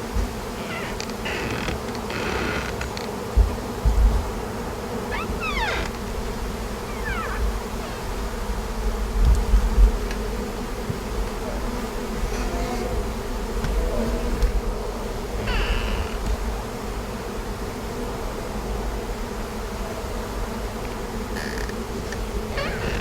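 A swarm of honey bees buzzing, a steady drone that holds throughout, with a few low bumps on the microphone.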